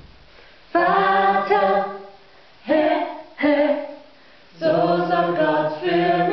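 Small vocal ensemble singing a cappella in held chords, in three phrases with short breaks between them: one starting about a second in, a short one around three seconds, and a longer one near the end.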